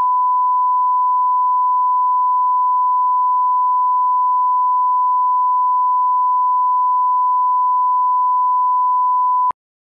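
Steady 1 kHz line-up reference tone, the standard test tone run with colour bars to set audio levels, cutting off suddenly near the end.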